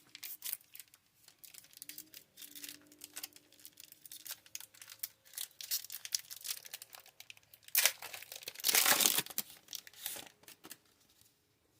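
Foil Pokémon booster pack wrapper crinkling and crackling as it is handled, with a louder stretch of tearing and crumpling about eight seconds in.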